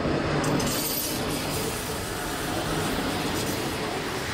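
Vintage GFM electric railcar hauling an open goods wagon rolling past close by on metre-gauge track: a steady noise of wheels running on the rails.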